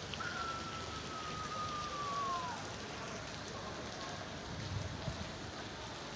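Steady hiss of heavy rain. About a quarter second in, a single high tone sounds and slides slowly downward in pitch for a little over two seconds.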